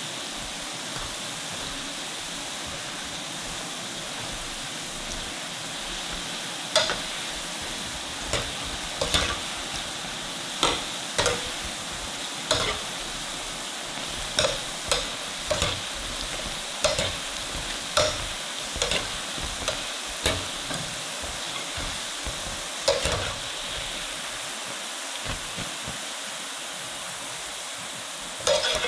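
Sweet potato balls deep-frying in a pan of oil: a steady sizzle. From about seven seconds in, a wire skimmer stirs them, making sharp, irregular taps and clinks against the pan.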